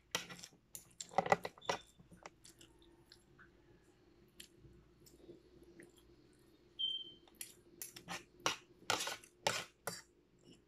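Fork and spoon clinking and scraping against a plate while cutting meat off the bone, in scattered clusters of sharp clicks, with one brief squeak partway through.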